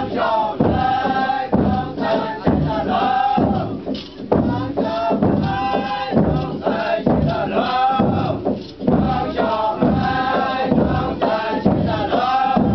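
Chang Naga performers singing a chant as a group, in short phrases repeated about once a second.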